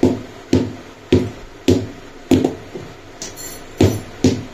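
A steady series of sharp percussive hits, about two a second, each with a short ring, with a break and a brief hiss just past the middle.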